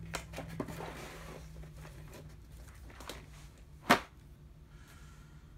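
Small parts and component boxes being handled on a workbench: light scattered clicks and rustles, then one sharp knock about four seconds in, over a steady low hum.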